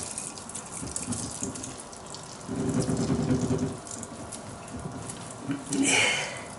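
Boiled mushrooms being pressed to squeeze out their liquid: wet squelching and liquid running out, with a louder stretch about midway.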